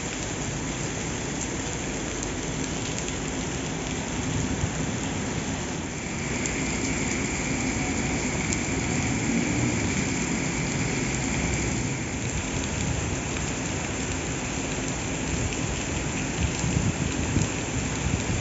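Heavy rain pouring down, with a passenger train rolling slowly past underneath it. A faint steady high whine sits in the middle for several seconds.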